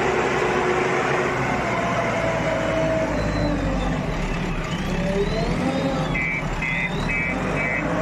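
JCB backhoe loader's diesel engine running steadily under load as the front bucket pushes a heap of soil. About six seconds in, a reversing alarm starts beeping, two to three beeps a second.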